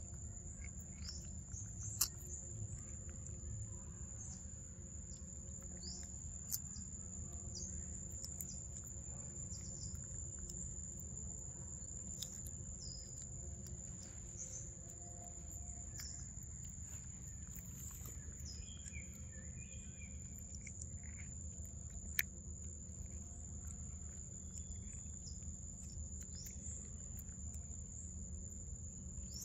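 Forest ambience: a steady high-pitched insect drone, with scattered bird chirps over a low rumble. Three sharp clicks stand out, about two seconds in, at about six seconds, and near twenty-two seconds.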